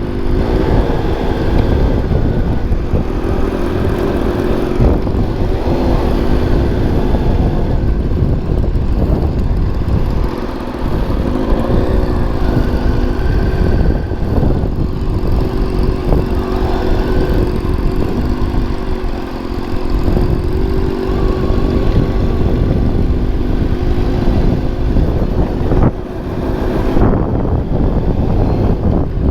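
Motorcycle engine running while riding, its note rising and falling with the throttle. Heavy wind rumble on the microphone lies underneath.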